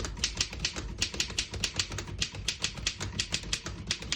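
Typing on a 1914 Royal 5 typewriter: a quick, even run of sharp type-bar strikes against the platen, about six to eight keystrokes a second with a few short pauses. The keys type cleanly, none skipping or sticking.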